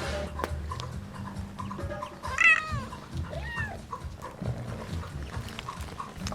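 A cat meowing twice: a loud call that falls in pitch, then a softer, shorter one, with small knocks and rustling around it.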